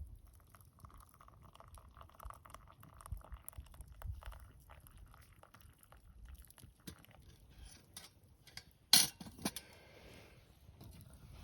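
Scattered light clinks and clicks of small hard objects being handled, with one sharp knock about nine seconds in and a smaller one just after.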